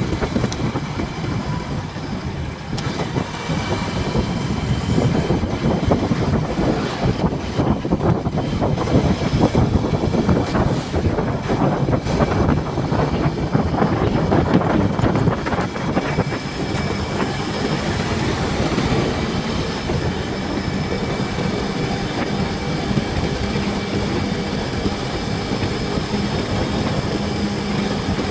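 Motorcycle riding at speed: dense wind and road rumble over the microphone, with the engine running. From about halfway through, a steady engine hum holds at one pitch as the bike cruises.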